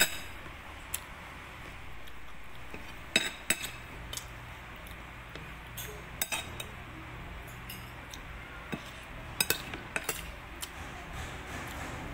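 Spoon and fork clinking and scraping against a plate while eating: a scatter of sharp clinks, some in quick pairs, over a steady low hum.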